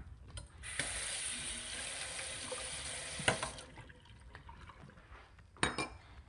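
Kitchen tap running into a sink for about three seconds while dishes are washed, with a knock near its end and a brief clatter of dishes toward the end.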